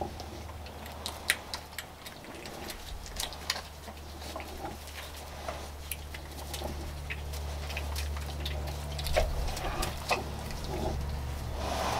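Pig sounds from a farrowing sow and her newborn piglet: soft grunts among scattered clicks and rustles in the straw, over a steady low hum.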